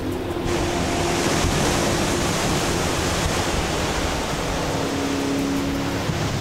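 Ocean surf breaking against a rocky shore: a steady, heavy rush of water that swells fuller about half a second in.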